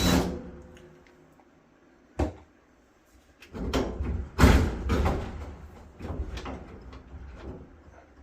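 Clunks, knocks and scraping of a clothes dryer's sheet-metal front panel and drum being handled as the panel is lifted off. There is one sharp click about two seconds in, then a run of louder clunks and scrapes, the loudest about halfway through.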